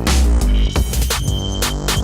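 Electronic dance music with heavy bass and a fast drum beat.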